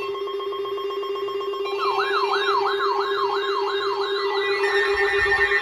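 Several emergency alert tones sounding together: a steady pulsing tone, joined about two seconds in by a siren-like warble sweeping up and down a little over twice a second, with another steady tone added near the end.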